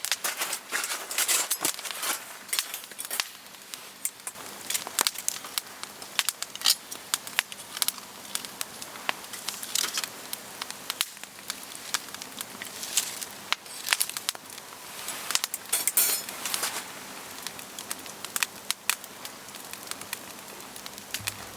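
Wood campfire crackling, with many irregular sharp pops and snaps over a soft hiss.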